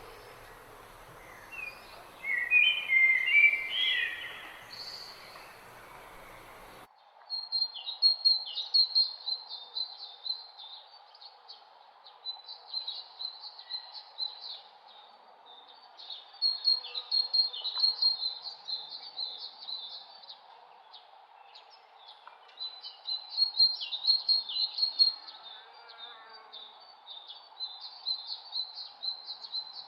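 Songbirds chirping. A short cluster of chirps comes in the first few seconds; then, after an abrupt change of background about seven seconds in, a bird repeats high, rapid chirping phrases in bouts every few seconds over a faint steady hum.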